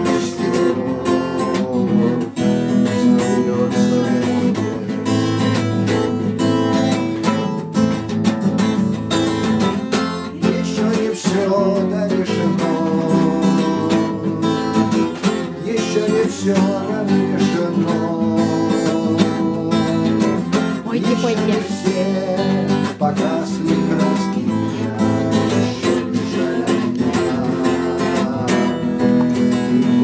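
Acoustic guitar strummed in a steady rhythm, playing a chord accompaniment.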